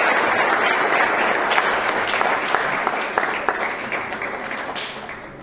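Audience applauding, full at first and dying away toward the end.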